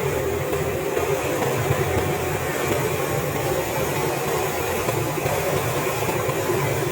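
Knife blade being ground on a motor-driven sharpener: a steady grinding hiss over a low motor hum, with no break or change.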